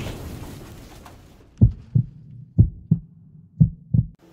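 Heartbeat sound effect: three pairs of low thumps, about one pair a second, following the fading tail of a crash-like effect.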